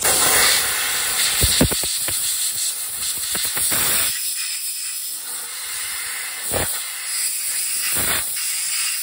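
Aerosol can of undercoating hissing steadily as it is sprayed onto a truck leaf spring, with a few short knocks in between.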